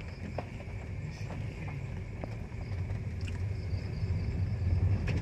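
Car rolling slowly over a rough, damaged road, heard from inside: a low engine and tyre rumble that grows louder near the end, with scattered knocks and rattles as the car bumps over the broken surface.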